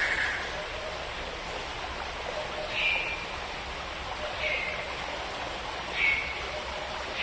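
A bird repeats a short call with a slight downward slide about every one and a half seconds, four times, over a steady background hiss. A longer call fades out right at the start.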